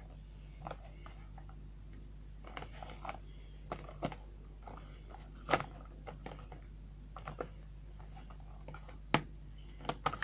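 Scattered light clicks and taps of small plastic toy figurines being handled and set down, with a sharper knock about five and a half seconds in and another about nine seconds in, over a faint steady hum.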